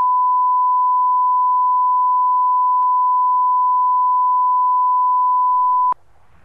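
Steady 1 kHz line-up test tone, the bars-and-tone reference that plays with broadcast colour bars: one unbroken pure beep that cuts off abruptly near the end.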